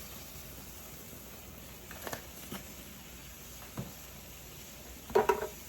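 A few faint light taps and clicks from a garlic powder shaker being sprinkled, over a low steady background hiss.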